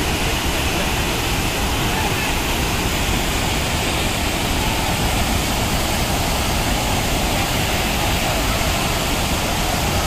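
Water falling over a dam's overflow, swollen with monsoon rain, making a loud, steady rush without let-up.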